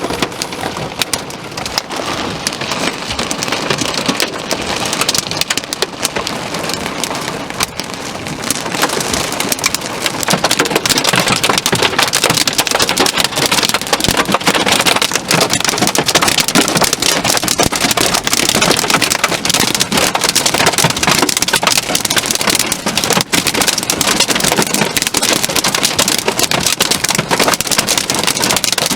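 Heavy thunderstorm rain pouring steadily, a dense patter of drops that grows louder about nine seconds in.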